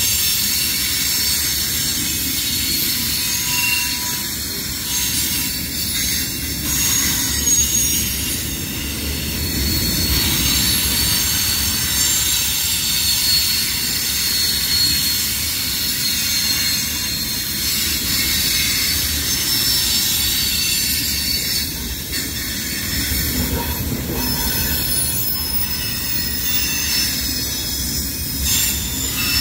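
Freight train of covered hopper cars rolling past, its wheels screeching with several steady high-pitched squeal tones over the continuous rumble and rattle of the cars.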